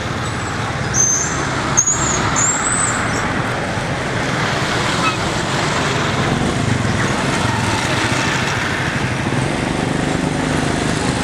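Steady noise of road traffic, with a few short high chirps in the first three seconds.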